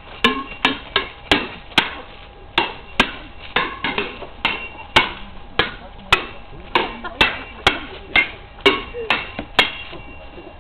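Metal sword blades clashing in a staged sword fight: a rapid, irregular run of sharp strikes, about two a second, each with a short ringing tone.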